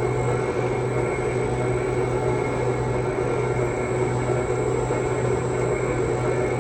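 Cold press oil expeller machine running with a steady low hum.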